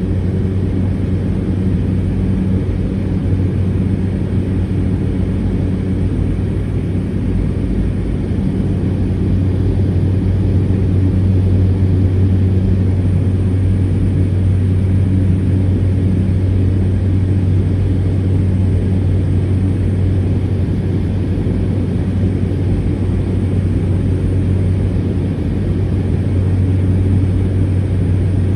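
Cessna 208 Caravan's Pratt & Whitney PT6A turboprop engine and propeller running steadily: a loud, even hum with a strong low tone.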